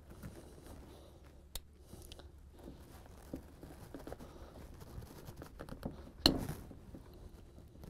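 Faint handling noises of a bolt-action rifle bolt being taken apart with a bootlace: the cocking piece is hooked in the lace and pulled back while the bolt is unscrewed in short turns, with small scraping and crunching. A sharp click comes about one and a half seconds in and a louder knock a little after six seconds.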